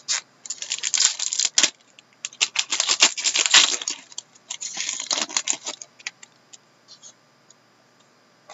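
Foil trading-card pack wrapper crinkling and tearing open in three bursts over the first six seconds, then a few light clicks of the cards being handled.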